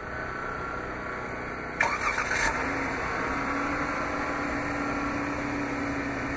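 2015 Jeep Grand Cherokee's 3.6-litre Pentastar V6 started by the key fob's remote start: the starter cranks about two seconds in, the engine catches, and it settles into a steady idle.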